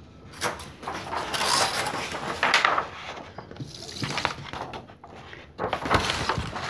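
Craft materials handled on a tabletop: a plastic tub moved about and a large sheet of paper rustled and spread out, in irregular scraping and rustling bursts with a few sharp clicks. There is a quieter lull about four seconds in before the paper rustling near the end.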